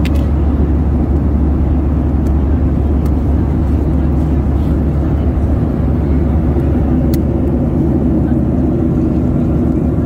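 Jet airliner cabin noise in cruise flight: a steady low rumble, with a few faint clicks over it.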